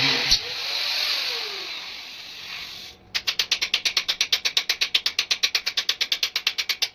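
A rapid, even train of sharp mechanical clicks, about ten a second, starting about three seconds in and stopping abruptly. Before it comes a single sharp click and a hiss that fades away.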